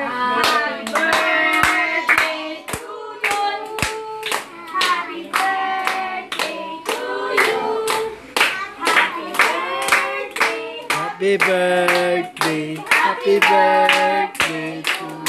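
A group of voices singing a party song together while hands clap in rhythm.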